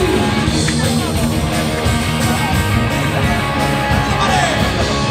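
Music playing, a continuous band track at steady loudness.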